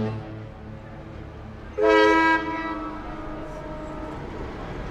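A ship's horn gives one short blast about two seconds in, a chord-like tone that fades away over the following second or so, over a steady low rumble.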